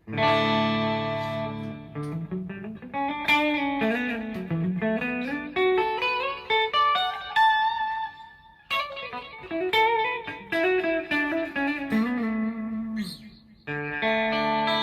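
PRS SE CE 24 electric guitar played through an amp. It opens with a chord left to ring, moves into single-note melodic lines with slides, and strikes another chord near the end.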